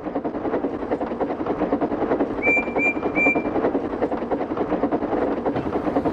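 Steam locomotive sound effect: rapid, even exhaust chuffs at speed, swelling in the first second. Three short high tones sound about halfway through.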